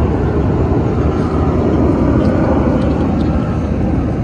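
A formation of aerobatic display jets flying overhead: the steady, loud noise of their jet engines.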